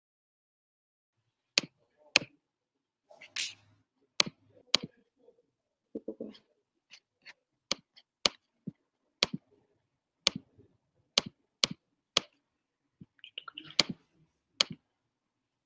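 Sharp, separate clicks at an uneven pace, about two a second, from a computer mouse and keyboard being worked by hand, with a couple of short rustles among them.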